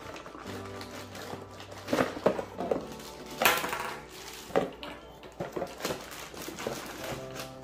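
Plastic packaging bags rustling and crinkling with a few light clinks of small parts as the bagged parts of a light fixture are unpacked and handled, the loudest bursts about two and three and a half seconds in. Background music plays underneath.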